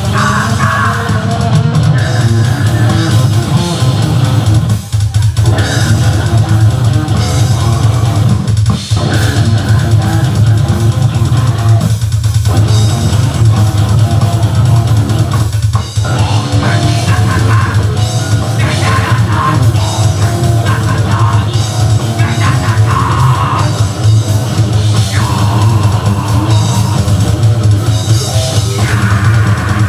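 Heavy metal band playing live: drum kit, distorted guitars and electric bass. The playing stops briefly several times in the first half.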